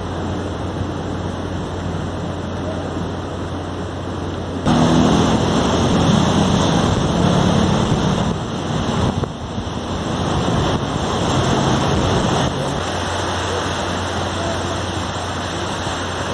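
Outdoor ambience of wind on the microphone and surf, with a steady low hum. About five seconds in it steps louder and a low drone runs under it, then it drops back to the quieter hiss about twelve seconds in.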